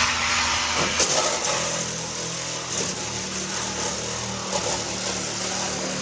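A power tool running steadily as it cuts through a sign face, a constant motor hum under a loud hiss of cutting.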